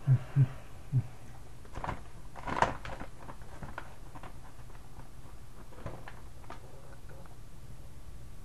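Plastic-foil Doritos chip bag crinkling and crackling as it is handled and tipped up, loudest in a burst about two and a half seconds in, with scattered lighter crackles after. Three dull thumps come in the first second.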